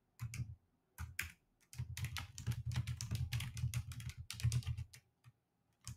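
Typing on a computer keyboard: a few short runs of keystrokes, then about three seconds of quick, continuous typing that stops about a second before the end.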